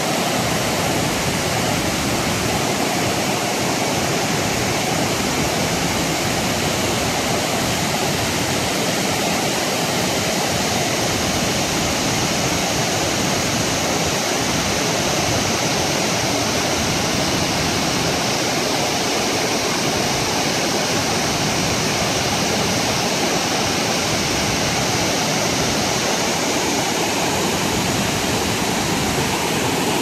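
Thi Lo Su waterfall's tiers pouring into a plunge pool: a loud, steady rush of falling water.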